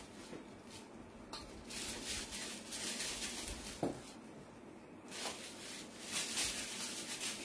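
Quiet handling noise of polythene piping bags filled with cream, rustling as they are swapped and twisted in the hands, with a few light knocks.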